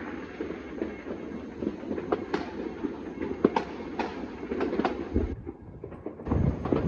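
Dense, continuous crackle and popping of many distant fireworks and firecrackers going off across a city, a rolling rumble with sharper bangs several times a second. It thins for about a second near the end, then picks up louder.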